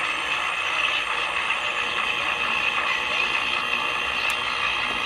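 Remler tube radio's loudspeaker giving out steady static hiss and crackle while tuned off-station, with one sharp click about four seconds in. The owner blames the poor reception on plates touching in its dirty tuning condenser, which keeps the set from holding a station.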